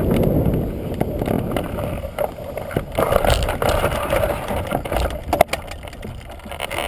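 Wind rushing over the microphone, fading over the first few seconds, then scattered knocks and rustles.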